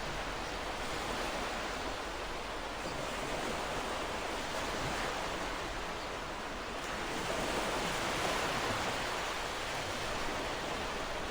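Ocean surf washing onto the shore: a steady wash of waves, swelling a little louder about seven seconds in.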